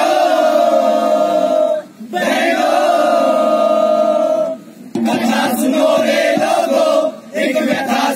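A group of voices singing or chanting together in unison, in four phrases of about two seconds each. Each phrase dwells on a long held note, with a short break between phrases.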